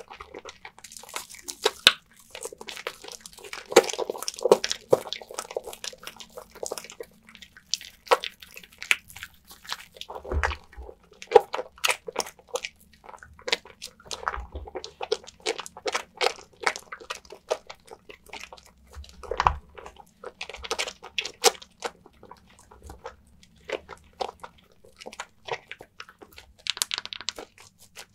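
Wet lavender soap bar being lathered: dense, irregular squelching and crackling of soft soap and foam, with a few soft low thumps.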